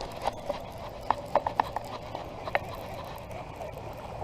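Irregular hollow knocks and taps from gear handled against a plastic kayak while a fish is being landed: a quick cluster about a second in and one more past halfway.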